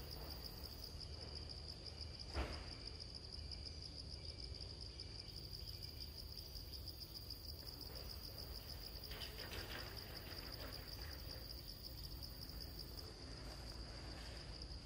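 Insect chorus making a steady, high-pitched pulsing trill. There is one sharp click about two and a half seconds in, and faint rustling around ten seconds in.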